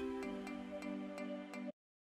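Soft instrumental background music with a light, steady beat, cutting off abruptly near the end.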